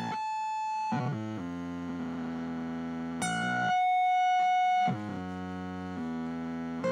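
Electric guitar played through a circuit-bent Boss DS-1 distortion pedal, coming out as held, synth-like tones that jump to a new pitch every second or two. The glitchy pitch changes come from the bend, which alters pitch and speed depending on where the guitar is played.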